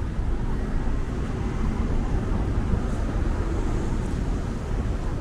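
Steady street traffic: cars running along a wide multi-lane avenue, a constant low rumble with no single event standing out.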